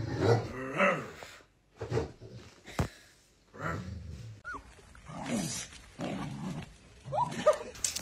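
A golden retriever grumbling and moaning in a string of short vocal outbursts with a few brief rising whines, a dog's tantrum of protest. One sharp click about three seconds in.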